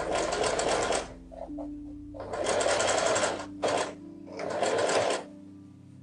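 Singer sewing machine stitching fabric in three short runs of about a second each, the needle going in a fast even rhythm, stopping and starting again between runs.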